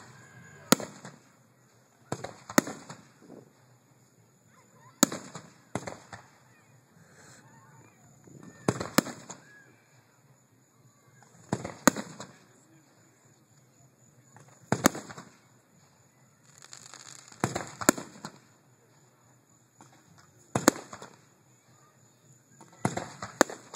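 Aerial fireworks shells bursting, a sharp bang every two to three seconds, about ten in all, some coming in quick pairs.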